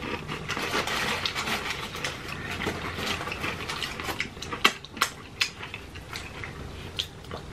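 Close-miked chewing and wet mouth sounds of people eating fried chicken and fries, with a few sharp clicks in the second half.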